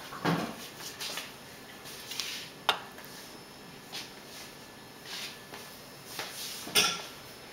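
Faint kitchen handling sounds: a plastic slotted spatula lifted off a ceramic plate, with one sharp click and a few soft scrapes and rustles.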